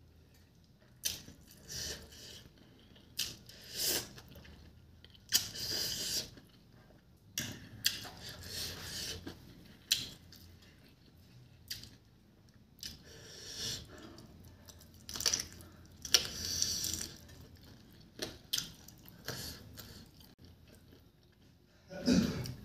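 A person chewing chicken feet and rice with the mouth full: irregular wet smacks and crunches every second or two.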